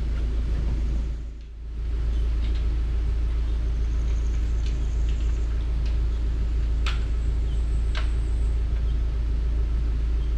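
A vehicle's engine running at low speed, a steady low rumble that dips briefly about a second and a half in. A couple of sharp clicks sound past the middle.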